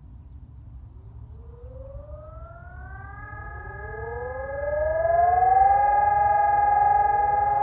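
Several civil-defence sirens sounding for the monthly siren test, starting up one after another. Each tone rises in pitch and then holds steady, so the staggered tones build into a loud chord by about five seconds in, over a low background rumble.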